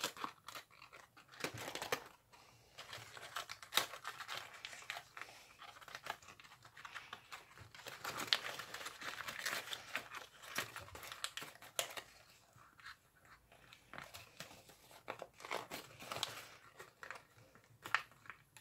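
Folded origami paper crinkling and rustling as fingers pinch and shape a paper butterfly's crumpled wings, with irregular small crackles.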